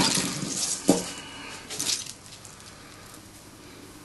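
Objects being handled on a workbench: a single sharp knock about a second in and a brief rustle or scrape near two seconds, then quiet room tone.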